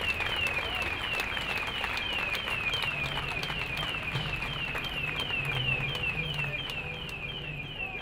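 An electronic alarm sounding a rapid run of short falling chirps, about three a second, over street and crowd noise.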